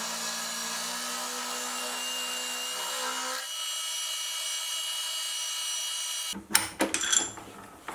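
Milling machine running a roughing end mill through mild steel under flood coolant, a steady whine made of several tones; about three and a half seconds in the lowest tones drop away and a higher whine carries on. Near the end the steady running gives way to a few sharp knocks.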